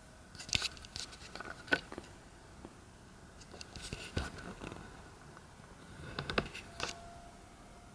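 Handling of the product box and its packaging: scattered clicks, taps and short rustles in three small clusters, about a second in, around four seconds in and near six and a half seconds in.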